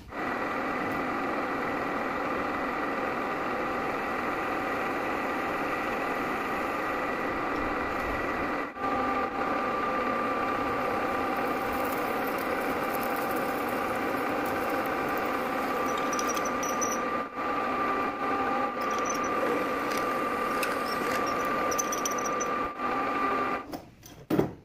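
A metal lathe running with a steady whining hum as it faces the end of a metal rod and then drills into it with a twist drill. The tone shifts slightly about nine seconds in. The running stops near the end, followed by a short knock.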